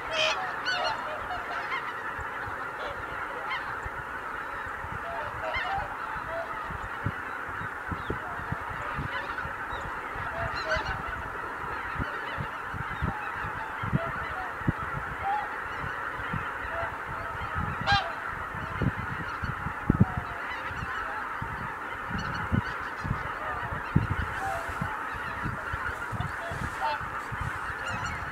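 A large flock of greater white-fronted geese calling in flight, many overlapping honking calls forming a dense, continuous chorus as the flock takes off and flies out together. Scattered low thumps run through it.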